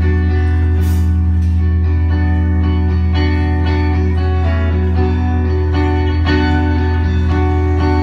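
Live band playing an instrumental passage through the stage PA: electric guitars over a steady bass and drums, with drum hits about once a second.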